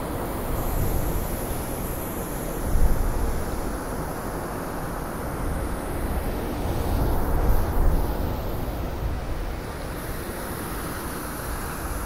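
Blizzard wind blowing in gusts: a low, steady rushing that swells about three seconds in and again around seven to eight seconds.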